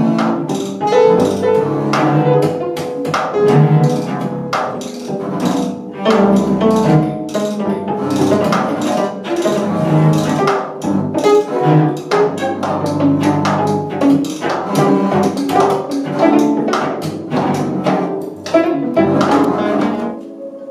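Cello and double bass bowing together under dense, irregular sharp strikes on a prepared snare drum, in a contemporary improvising ensemble.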